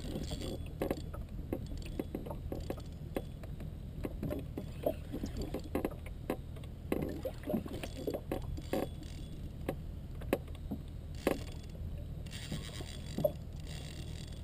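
Irregular light clicks and knocks from a fishing rod and reel being handled aboard a canoe, over a low steady hum, with a faint hiss coming in near the end.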